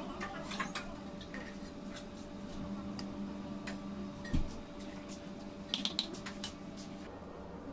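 Metal fondant cutters being handled, pressed and set down on a stone countertop: small scattered clicks and taps, one dull thump a little past the middle, and a few quick metallic clinks about six seconds in, over a steady low hum.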